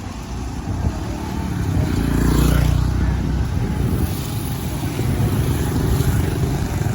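An engine running steadily, swelling louder about two seconds in and then settling back.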